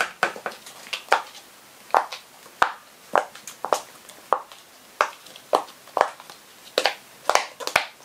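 Irregular sharp plastic clicks and pops, about two a second, as a large fidget toy is opened and handled.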